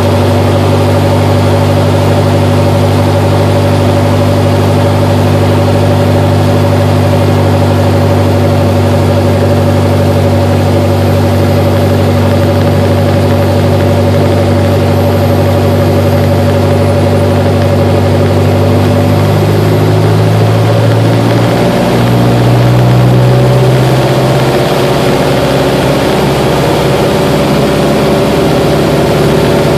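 Grumman American AA-1 Yankee's four-cylinder Lycoming O-235 engine and propeller, heard from inside the cockpit. It runs steadily at low power, then about twenty seconds in it is throttled up, its pitch climbing over a few seconds to full power for the takeoff roll.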